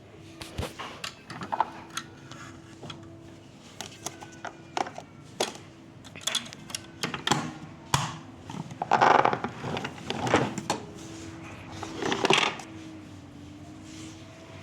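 A Thomas vacuum cleaner being handled: irregular knocks and clatter, busiest about nine to twelve seconds in, over a faint steady hum.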